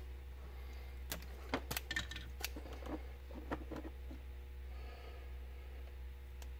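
Hand wire strippers snipping and clicking on a white four-conductor telephone cable as it is cut to length and its end is stripped. The sound is a scatter of small sharp clicks over a steady low hum.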